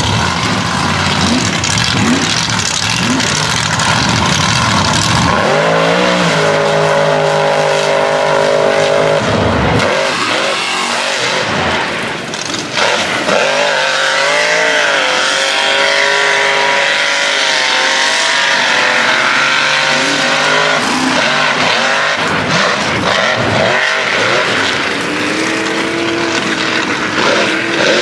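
A 2600-horsepower mega mud truck's engine revving hard at high rpm while its huge tyres spin through deep mud. The engine pitch holds high, then wavers up and down, with a short drop about twelve seconds in.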